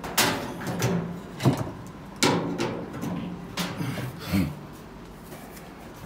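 Sharp metallic knocks and clanks, about five in the first four and a half seconds, as a top-loading washing machine's suspension rod is worked loose from its corner hook with pliers.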